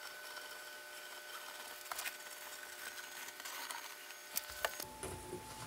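Faint handling noise as a squeeze bottle of wood glue is worked along a chipboard edge: a few light clicks and taps over a low hiss.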